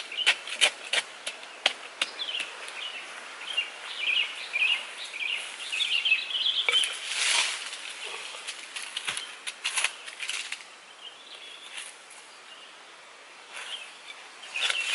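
A pointed stick jabbing and scraping into dry earth, a quick run of sharp taps, then dry leaves rustling and rocks being shifted, with a louder rustle about halfway through. Birds chirp in the background for the first several seconds.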